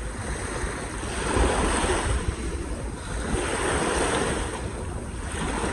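Small lake waves lapping and washing up onto a sandy shore, swelling twice, with wind rumbling on the microphone.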